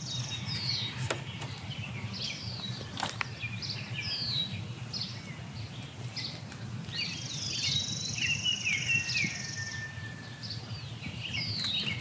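Songbirds calling outdoors: repeated short down-slurred notes, and a high, level buzz with quick notes for about two seconds past the middle, over a low steady background rumble. A couple of faint clicks come from handling plastic seedling pots.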